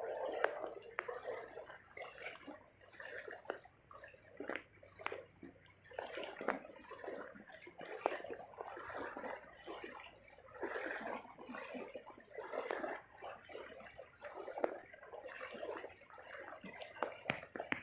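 Water splashing and sloshing in irregular bursts, with small sharp clicks and knocks among them.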